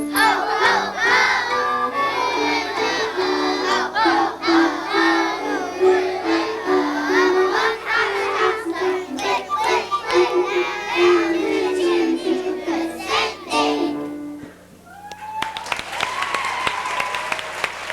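A group of young children singing a holiday song together over musical accompaniment. The song ends about 14 seconds in, and the audience applauds after a short pause.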